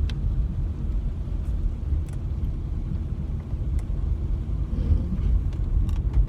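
Car cabin noise while driving: a steady low rumble of road and engine, with a few faint ticks.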